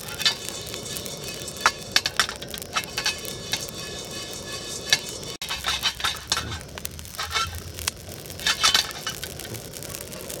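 Whole spices being dry-roasted in a stainless steel pan over a burner, with many scattered sharp clicks and crackles from the spices against the hot metal.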